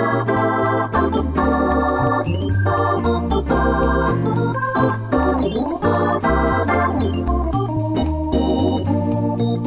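Background music: a keyboard tune with a bass line that steps between notes and a steady beat.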